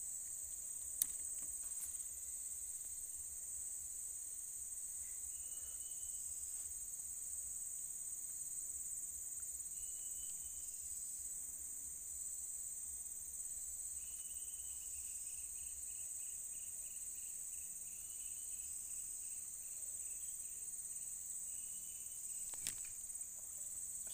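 Steady high-pitched drone of an insect chorus, with fainter short repeated chirps over its second half and a single sharp click about a second in.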